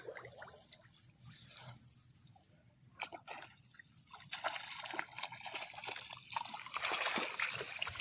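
Shallow paddy water trickling and sloshing in irregular small splashes, growing busier near the end, as water is stirred and dripping.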